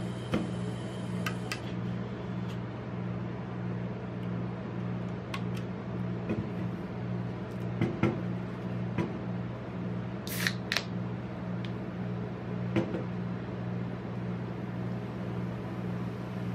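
Steady low hum of a rolled-ice-cream cold plate's refrigeration unit, with scattered light clicks and taps from an aluminium soda can being handled on the steel plate. About ten seconds in come two sharp cracks as the can's pull tab is opened.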